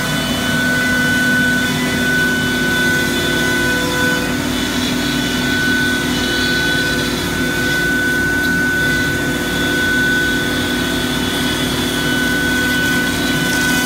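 Techno 4x8 HD CNC router cutting a plywood sheet, its spindle giving a steady high whine as the bit runs through the wood. Under it runs the steady hum of the vacuum hold-down pump and dust extraction.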